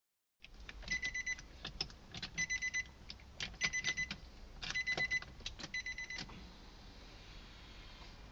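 Five short bursts of electronic beeping about a second apart, mixed with sharp clicks, then quieter near the end.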